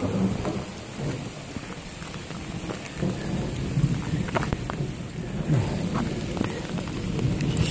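Rain pattering on a plastic bag wrapped over the recording phone, with many separate drops ticking sharply on the plastic. A low, uneven rumble runs underneath.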